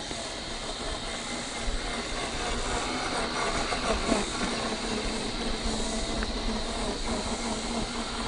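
1/6-scale FMS Jimny LJ1 RC crawler driving over a dirt and wood-chip trail: a steady whine from its electric motor and gears under a steady hiss, with a few faint clicks.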